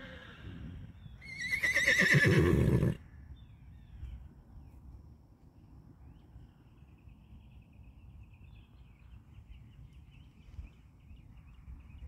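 A horse neighing once, loud: a quavering whinny about a second and a half long, starting about a second in. After it a faint high trill of birdsong carries on.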